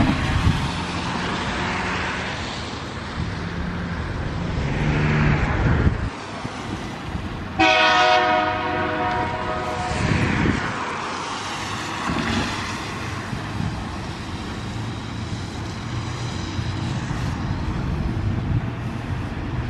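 A Tasrail TR-class diesel locomotive's horn sounds one long blast of about two and a half seconds, a little before halfway, as a warning for the level crossing. Cars pass on the wet road before and after, their tyre hiss swelling and fading.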